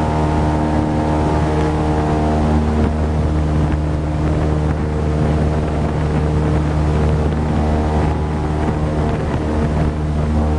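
Tour airboat's Cadillac 500 cubic inch big-block V8 and air propeller running steadily at cruising speed, a low, even drone with wind buffeting the microphone.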